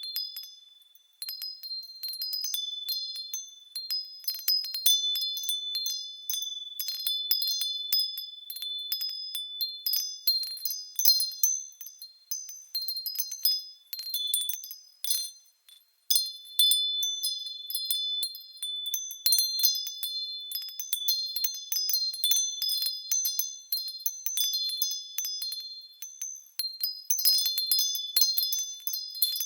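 Japanese fūrin wind chimes ringing irregularly in the breeze, clusters of high, bright strikes with lingering tones. They fall quiet briefly twice, about a second in and near the middle.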